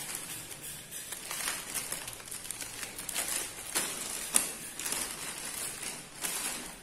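Clear plastic packaging crinkling and rustling in irregular bursts as a steel cookware piece wrapped in a plastic bag is pulled out and handled.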